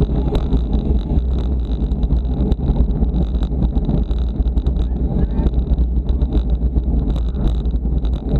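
Wind buffeting the microphone of a camera on a road bike moving at race speed, a steady low rumble broken by many small clicks and rattles from the bike and road.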